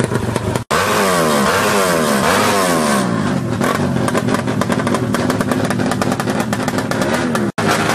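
Yamaha Jupiter drag-bike engine bored out to 180cc, revved up and down again and again, its pitch rising and falling. The sound breaks off abruptly under a second in and again near the end, where clips are joined.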